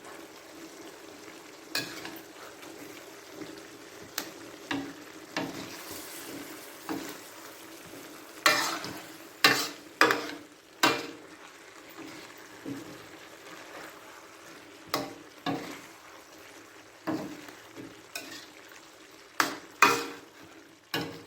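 Chicken and vegetable stir-fry being stirred and tossed in a pan with a utensil: irregular scrapes and clatters against the pan over a steady low sizzle. There is a run of louder scrapes around the middle and a few more near the end.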